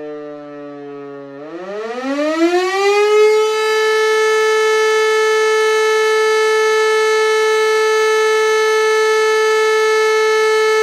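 Hörmann E57 electric civil-defence siren running on three-phase power: its tone sinks slowly for about a second and a half, then climbs quickly as the rotor speeds up again and settles into a loud, steady high tone.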